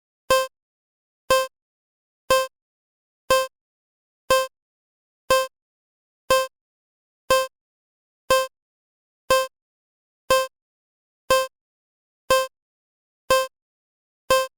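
Short electronic beeps at an even pace, one each second, fifteen in a row, all at the same pitch: a pacing tone for a timed exercise.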